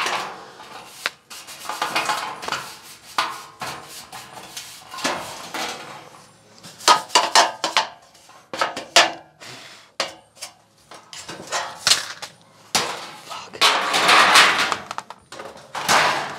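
Stiff brush scrubbing the inside of a clothes dryer's thin sheet-metal back panel in irregular scratchy strokes, with the panel rattling and clanking as it is handled; the scrubbing is heaviest in a long run near the end.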